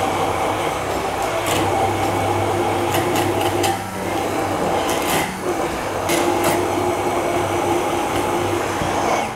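Hand-held immersion blender running in a tall plastic beaker, puréeing cooked corn into a cream. The motor note dips briefly twice in the middle as the blade is worked through the mix, and it cuts off suddenly at the end.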